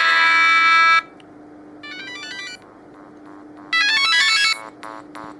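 Siemens CX65 mobile phone playing its polyphonic ringtones. A sustained synth chord cuts off about a second in. After a short gap, a new tone starts: a fast run of quick electronic notes in short bursts, loudest a little past the middle.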